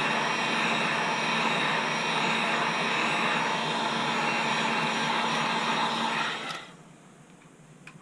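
Heat gun blowing steadily with a faint motor hum, warming a phone's back glass to loosen its adhesive; it switches off about six and a half seconds in.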